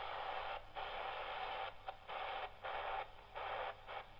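A shortwave broadcast on the 25 meter band played through the small speaker of an XHDATA D-220 pocket radio: thin, narrow-band audio in short stretches with brief dips between them. The station comes in nice and strong with a wirewound resistor on a wire antenna's end coupled to the radio's whip.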